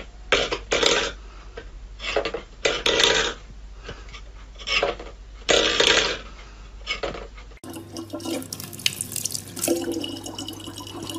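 A steel bowl scraping and clattering on a wooden floor in short, irregular bursts. About seven and a half seconds in it changes suddenly to a thin stream of tap water running steadily into a plastic bottle, with a low hum under it.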